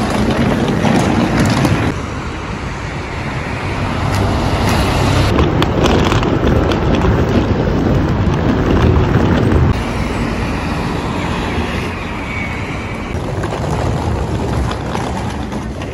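Fukuoka subway train running, a loud steady rumble and rushing noise that swells and eases a few times.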